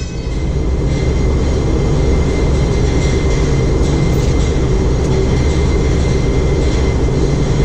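Steady, loud mechanical drone with a deep low rumble and a faint high whine held at one pitch throughout.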